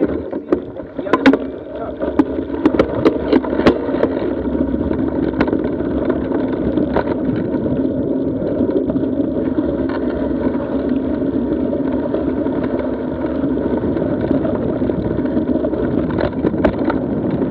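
Mountain bike rolling fast over a dirt desert trail, picked up by a camera mounted low on the bike: a steady rumble of the knobby tyre on the dirt and riding noise. Sharp clicks and knocks of the bike rattling over bumps come in the first few seconds and again near the end.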